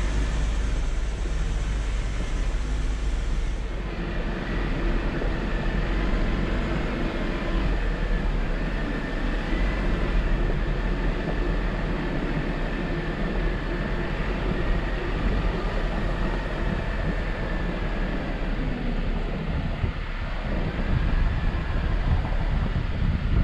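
Jeep Wrangler driving slowly over a rough off-road trail: a steady low engine and drivetrain rumble with irregular knocks and rattles.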